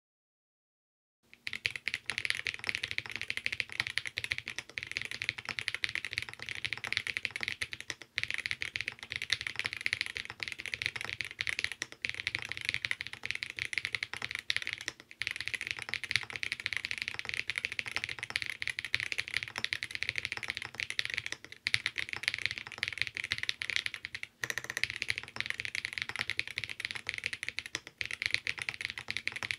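Fast, continuous typing on a custom Alice-layout mechanical keyboard: vintage Cherry MX Black housings with Boba U4T tactile stems, lubed with Krytox 203g0, in a leaf-spring mount with an FR-4 plate and GMK keycaps. The keystrokes come in a quick unbroken stream starting about a second in, with a few short pauses.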